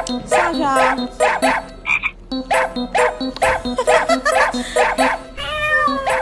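Background music with a quick, steady beat of short, repeated pitched notes that have a croaking quality. A gliding pitched sound rises over it about half a second in and again near the end.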